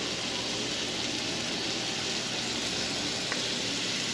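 80/20 ground chuck burger patties sizzling steadily in a hot 20-inch Lodge cast iron skillet, with one light tick about three seconds in.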